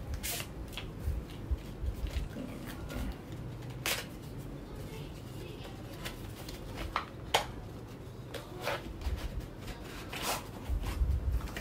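Navy cardboard Swarovski jewellery box being handled and opened: irregular light clicks and scrapes of card flaps and packaging being folded back.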